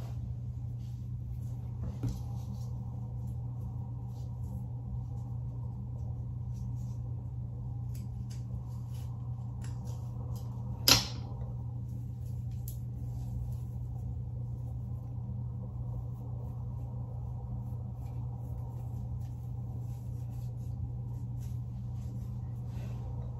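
Steady low hum with faint rustling and small ticks from hands parting and handling curly hair, and one sharp click about eleven seconds in.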